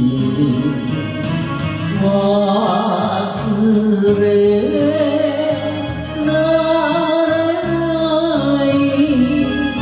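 A man singing a Japanese enka ballad into a microphone over a karaoke backing track, holding long notes.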